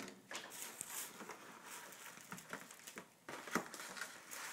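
Cardboard pizza box and its plastic wrap rustling as a frozen pizza is handled and slid out, with a few light knocks.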